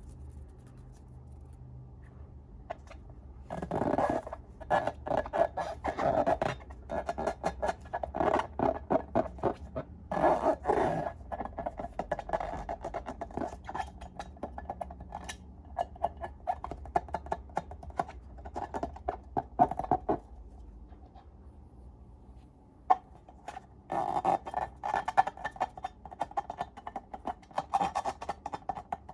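Slime being handled, squished and stirred: rapid wet clicking and crackling in two long stretches, with a pause near the start and another about two-thirds of the way through.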